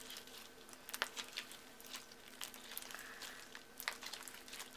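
Fluffy slime studded with soft foam beads being kneaded and stretched by hand: faint, irregular sticky clicks and crackles, with a few sharper ones.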